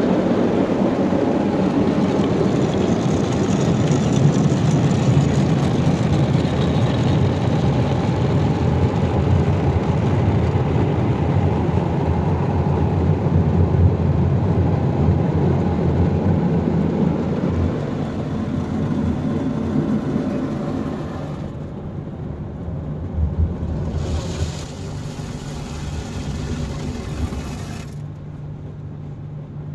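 Water jets of an automatic car wash spraying over the car, heard from inside the closed cabin as a loud, steady rushing. It eases off after about two-thirds of the way through, with a short hissier spell of spray near the end.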